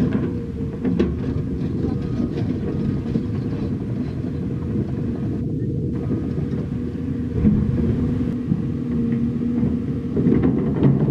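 Heavy diesel construction machinery running with a steady low rumble; a clearer, steady engine note comes through for a couple of seconds in the second half.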